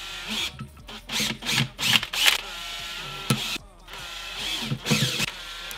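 Cordless drill boring holes through flattened PVC pipe in several short bursts, the motor pitch rising and falling with each squeeze of the trigger.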